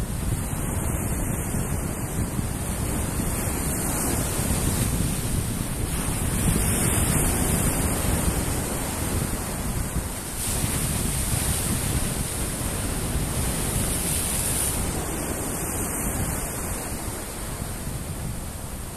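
Sea waves surging and breaking against boulders on a rocky shore, mixed with wind buffeting the microphone. The rushing noise swells louder about six seconds in and again about ten seconds in.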